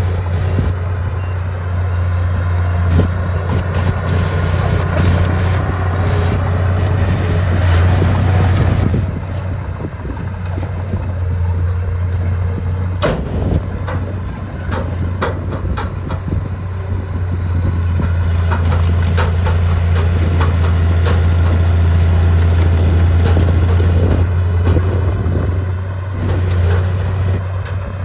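Diesel engine of heavy earthmoving machinery running with a steady low drone that swells louder around eight seconds in and again through much of the second half, with scattered clanks and knocks over it.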